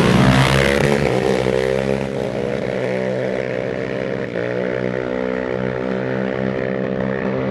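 Quad-bike (ATV) engine running steadily at an even pitch, a little louder in the first second or so.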